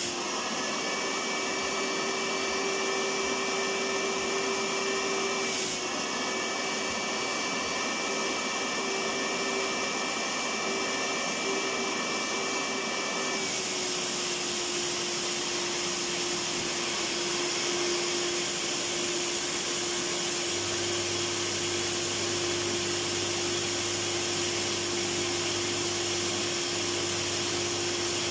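Electric vacuum cleaner running steadily: a constant rushing noise with a steady hum. A higher whine in it stops about halfway through, and a lower hum joins near the end.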